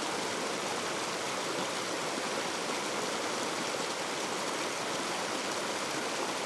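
Steady rushing of a mountain stream or waterfall, a constant even wash of water noise.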